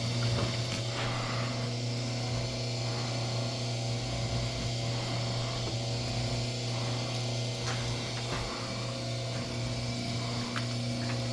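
Electric wire stripping machine running with a steady low hum while copper wire is fed through it. A few light clicks come through over the hum.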